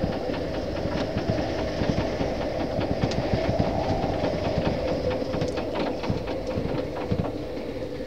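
Strong wind of about 17.5 knots buffeting a small moored yacht, heard from inside the cabin: a steady rumble and rattle with a wavering tone running through it, and a few light clicks.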